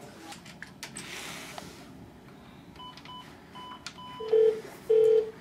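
Telephone keypad beeps as a number is dialled, a quick run of short tones, then two longer, lower, louder tones near the end.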